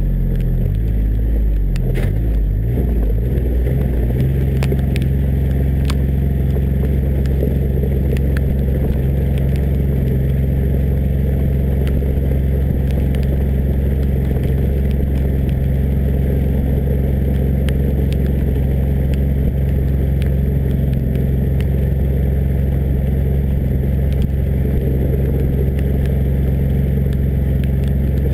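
John Deere Gator 855D's three-cylinder diesel engine running as the utility vehicle drives along a dirt track. The engine speed shifts during the first few seconds, then holds steady. A few sharp clicks come through early on.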